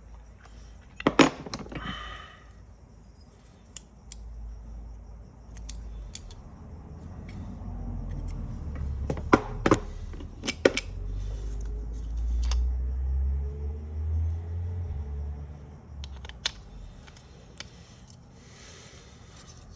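Small metal parts of a dismantled seatbelt retractor clicking and clinking as they are handled, with a few sharp clicks about a second in and again around the middle, over a low rumble of handling noise.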